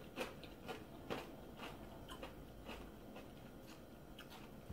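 Faint, irregular light clicks and taps, about two a second, from close-by small handling noises.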